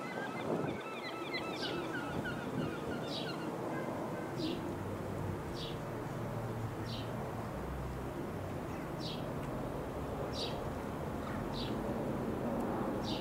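A bird gives a short high call about every second and a half, with a brief quick twittering in the first few seconds. Underneath is a steady low rumble from the Dassault Falcon 20 jet flying overhead.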